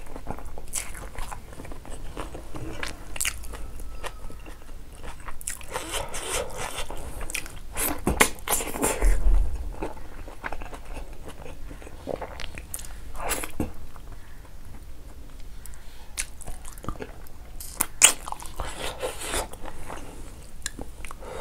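Close-miked chewing and biting of mouthfuls of rice and pork leg curry eaten by hand, with irregular wet mouth clicks and smacks. The strongest bites come about nine seconds in and again near eighteen seconds.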